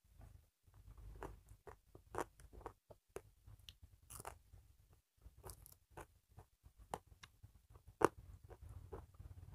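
Quiet, close-miked chewing and mouth sounds of someone eating a meal of rice, dal and egg by hand: irregular soft smacks and clicks, with one sharper click about eight seconds in.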